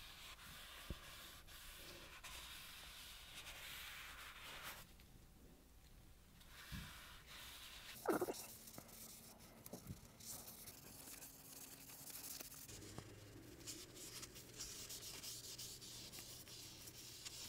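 Faint rubbing of a cloth rag on a wooden tool handle as boiled linseed oil is wiped on, with a single sharp knock about eight seconds in.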